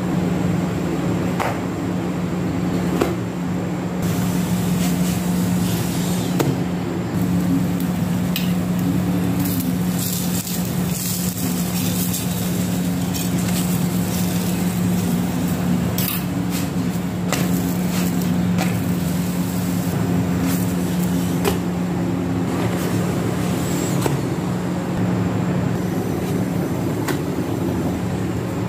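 A steady low mechanical hum throughout, with scattered clicks and scrapes of a metal spoon on an iron tawa as a chana dal puri is pressed and turned.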